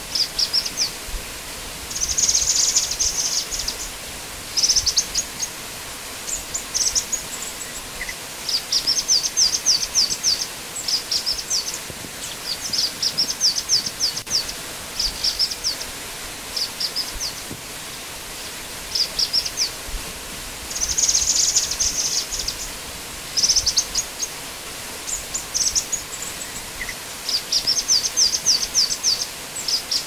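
Black-winged flycatcher-shrike (jingjing batu) calling: phrases of half a second to two seconds, each a fast run of short, high notes, repeated again and again, over a steady hiss.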